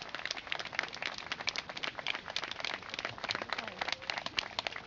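A group of people applauding by hand: many quick, uneven claps overlapping.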